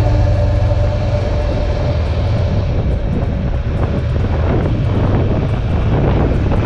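Motorcycle engine running as the bike rides slowly through city traffic, heard from a helmet camera as a steady low rumble.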